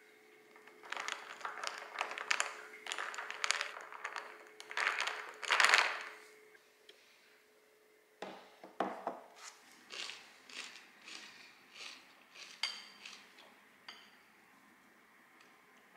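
Ice clinking and rattling in a glass as an iced drink is stirred for several seconds. After a short pause come a series of light knocks and clinks as a glass bowl and a cup are set down on a table and a utensil taps and scrapes against the glass bowl.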